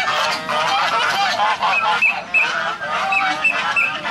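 A flock of domestic geese honking continuously, many calls overlapping. A few short, high peeps come through in the middle.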